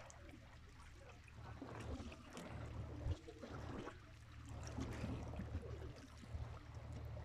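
Sea water lapping and splashing against the seawall, with wind buffeting the microphone in a low rumble that swells and fades, and a single sharp knock about three seconds in.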